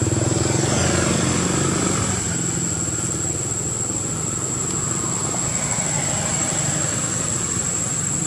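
A vehicle engine passes close by, dropping in pitch and fading over the first couple of seconds, then a steadier engine rumble carries on. A steady high-pitched tone sounds throughout.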